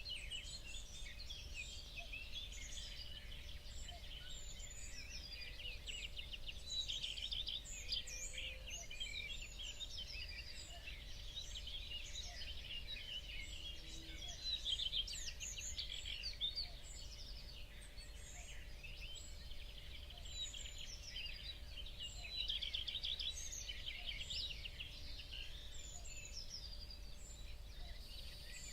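Many small birds chirping and trilling at once in a dense, continuous backyard chorus, over a steady low hum.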